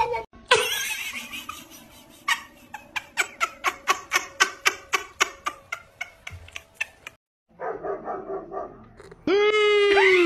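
A pet's calls: a run of short, quick yaps, about three a second, for several seconds. After a break comes a long drawn-out call that holds its pitch and then falls away.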